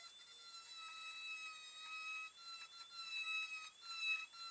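Handheld high-speed rotary tool whining as it engraves the steel axe blade. Its pitch dips and breaks off briefly every second or so as the bit is pressed into the metal.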